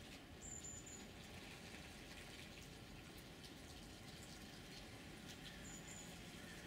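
Near silence: faint steady background hiss, with two brief high chirps, one about half a second in and one near the end.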